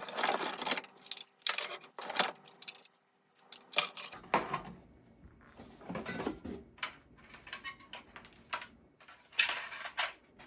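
Fire alarm devices being handled and turned over: an irregular series of clicks, knocks and rattles.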